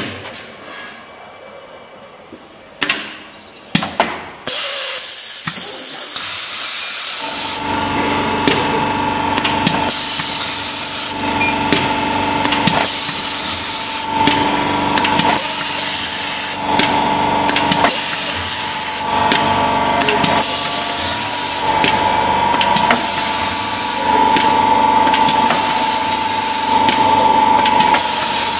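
LAM 50CA automatic thermal laminator running. A few clicks come first, then a hiss starts about four seconds in. From about seven seconds the machine runs loud and steady with a constant tone, and a hiss swells and fades every second or two.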